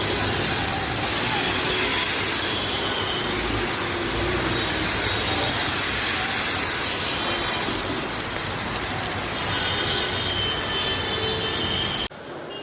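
Steady, loud rush of heavy monsoon rain mixed with street and vehicle noise. It drops away abruptly near the end.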